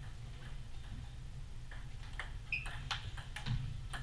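Table tennis ball clicking off paddles and the table in a doubles rally, the hits coming quicker from about two seconds in, over a steady low rumble.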